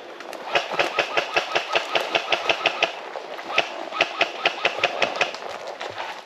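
Airsoft electric gun firing two strings of rapid, evenly spaced shots, about seven a second, the first about two and a half seconds long and the second about two seconds after a short pause.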